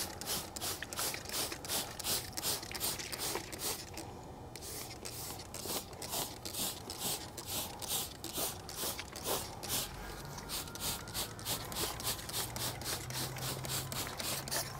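iK Multi TR 1 hand trigger sprayer pumped in quick, even pulls, about four hissing sprays a second, with a brief pause about four seconds in, wetting an alloy wheel with rinseless wash solution as a pre-soak for lubrication.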